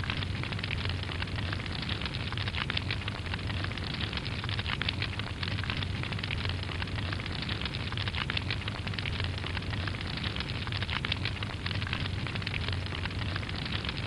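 Fire burning: a steady roar of flames with dense, continuous small crackles and pops.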